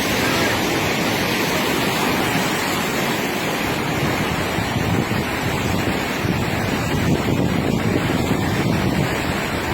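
Floodwater of a swollen river rushing steadily, with wind buffeting the microphone.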